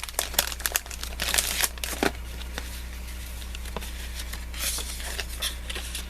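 Craft-supply packaging crinkling and rustling as it is handled and opened, a dense run of crackles in the first couple of seconds, then scattered crinkles.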